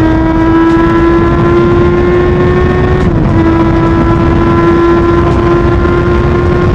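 Aprilia Tuono V4 motorcycle's V4 engine pulling under steady acceleration, its pitch rising slowly, with one quick upshift about three seconds in, over wind rush.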